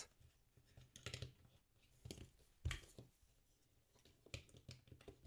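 Faint clicks and taps of hard plastic as Lego Duplo figures are set and pressed onto the studs of a Duplo boat: a handful of separate knocks, the loudest about two and a half seconds in.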